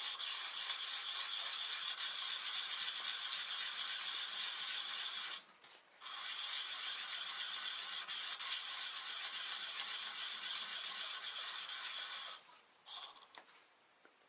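Round carbide turning cutter rubbed over the 600-grit face of a fluid-wetted diamond sharpening card: a steady gritty scraping in two long spells of about five and six seconds, with a short break between and a brief last rub near the end.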